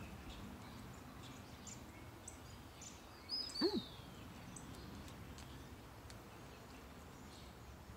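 Quiet outdoor ambience with faint, scattered bird chirps, and one brief louder sound with quick pitch sweeps about three and a half seconds in.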